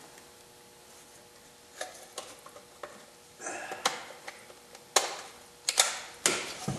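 Scattered clicks and rustles of a wiring harness connector being handled and plugged into a VW Passat's transmission control module, with a few sharper clicks in the second half.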